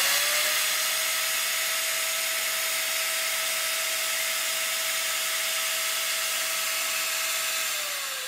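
Electric angle grinder (750 W) running at full speed with a steady whine and hiss, powered from a pure sine wave DC-to-AC inverter. Near the end it is switched off and winds down, the whine falling in pitch.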